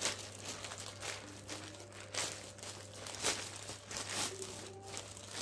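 Plastic courier mailer bag crinkling in irregular bursts as hands pull it open.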